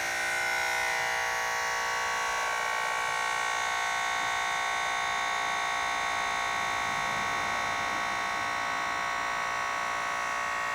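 Motorcycle air-ride 12-volt air compressor running with a steady electric buzz, airing up the suspension and lifting the bike.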